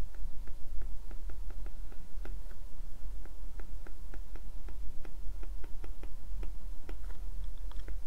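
Stylus tip tapping and clicking on a tablet's glass screen during handwriting: a quick, irregular run of light ticks, several a second, over a steady low hum.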